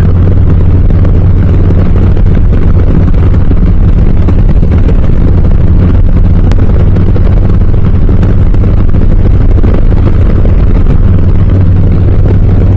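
Harley-Davidson Low Rider S's Milwaukee-Eight 117 V-twin, breathing through Cobra RPT slip-on mufflers, running loud and steady with an even low drone that holds one pitch.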